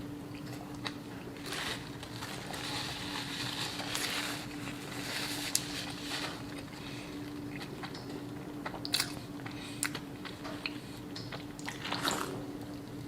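A person eating close to the microphone: bites and chewing of crunchy food, with sharp mouth clicks scattered through, over a faint steady hum.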